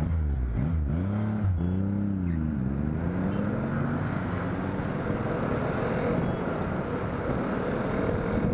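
KTM Duke motorcycle engine heard from the bike itself. Its revs dip and rise several times in the first few seconds, then its pitch climbs slowly and steadily as it pulls away.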